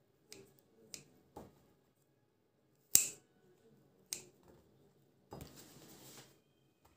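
Kitchen scissors snipping through soft dough pieces, the blades clicking shut five times; the sharpest snip comes about three seconds in. A short scraping rustle follows near the end.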